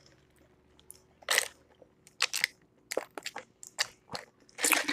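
Close-miked mouth sounds of a person chewing crunchy fried food, in a series of short crisp crunches. Near the end comes a longer noisy sip of soda through a straw.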